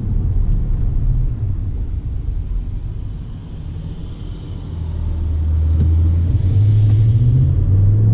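Pickup truck's 5.7-litre V8 running on the road with low road rumble. In the second half the engine note gets louder and climbs in pitch as the truck pulls harder.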